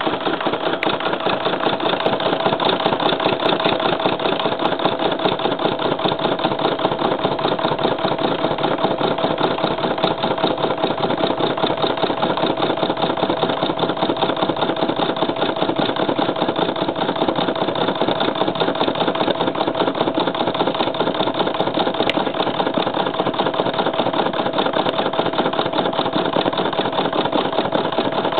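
Embroidery machine stitching steadily: a fast, even needle rhythm over a constant hum.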